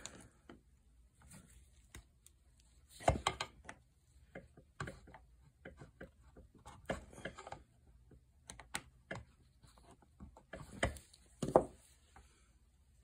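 Small metal parts and hand tools being handled while the piston is removed from a chainsaw engine: scattered clicks and knocks, the loudest about three seconds in and twice near the end.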